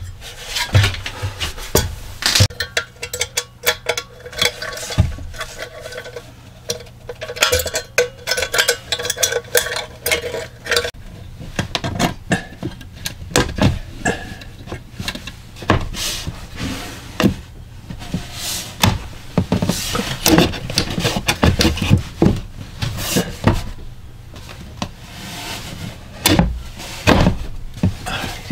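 Irregular knocks, taps and rubbing of a thin wooden panel being handled and pressed into place against a wooden cabinet frame.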